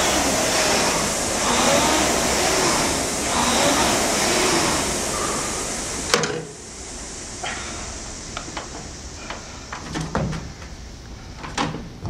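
Concept2 indoor rower's air-resistance flywheel whooshing loudly, rising and falling in pitch with each stroke. It stops abruptly about halfway through, followed by scattered clunks and knocks from the machine.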